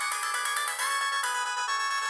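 Sharp GX12 mobile phone playing a ringtone through its small speaker: a continuous electronic melody with several notes at once, thin and without bass.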